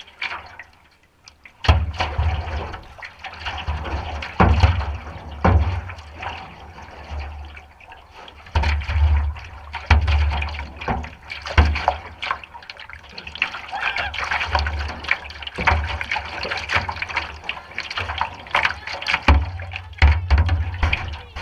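River water rushing and splashing over a shallow riffle, heard from a canoe's bow, starting about two seconds in, with irregular low thumps mixed through it.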